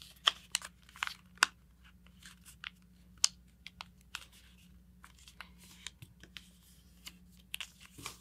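A sheet of paper being folded and creased by hand: a run of short, crisp crinkles and snaps. The sharpest come in the first second and a half and again about three seconds in.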